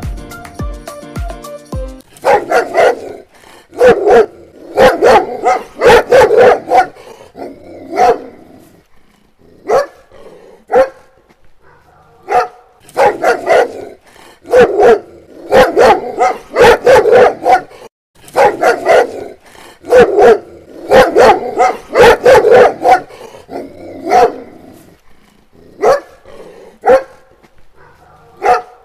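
A dog barking over and over in quick runs of several barks, with short pauses between runs. A brief musical jingle plays in the first two seconds.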